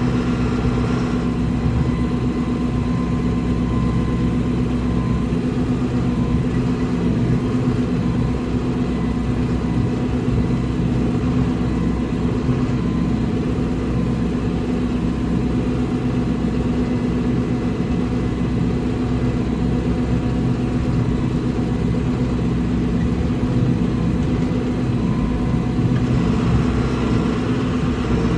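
A vehicle engine running steadily at an even, low speed, with no pauses or sharp revs.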